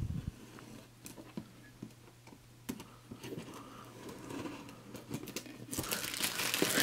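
Scissors cutting the plastic shrink wrap on a board game box, with scattered small clicks and rustles. Near the end comes a loud crinkling as the shrink wrap is torn and pulled away.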